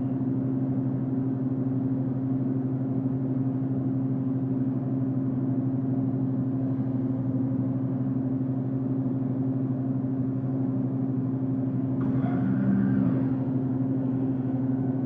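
Drink vending machine humming steadily as it runs, a low electrical-mechanical drone, with a short extra tone about twelve seconds in.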